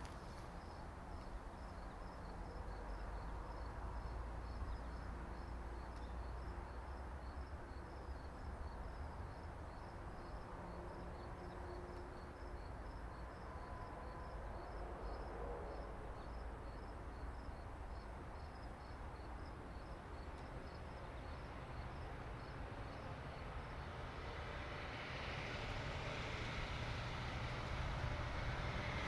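Steady low outdoor rumble under a faint, even run of high chirps, about three a second. Near the end a rushing noise swells up and grows louder.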